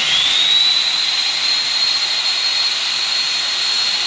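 Electric drive motor of a portable material lifter running as it lowers the loaded top panel. It starts suddenly with a high whine that rises in pitch for about half a second as it spins up, then holds steady over an even hiss.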